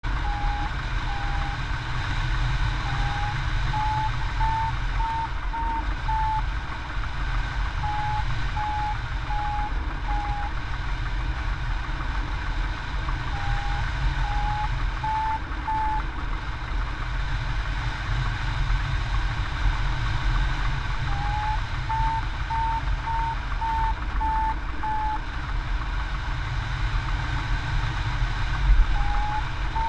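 Hang glider variometer beeping in runs of short tones about twice a second, the pitch rising a little within each run, which signals the glider climbing in lift. Under it, steady wind rushes on the microphone.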